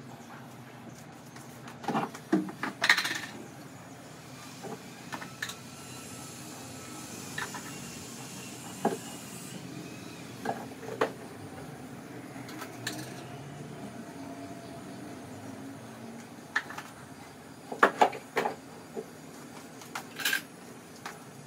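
Kitchen clatter: scattered clinks and knocks of containers, lids and utensils being handled and set down while spices are added to a dish. The loudest clusters come about two to three seconds in and again near the end.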